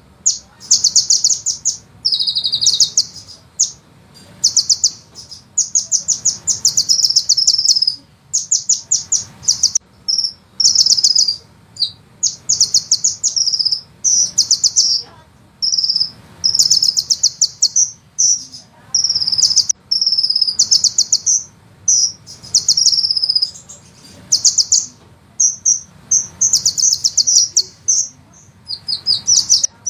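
Sunbird song: fast, high-pitched rolling trills and rapid chip series, repeated in bursts of about a second with short gaps between them.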